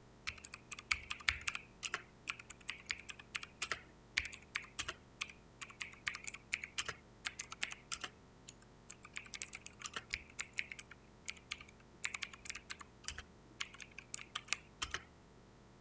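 Xecret Gladiator mechanical keyboard with clicky blue switches being typed on: quick, irregular key clicks in runs with short pauses, stopping about a second before the end.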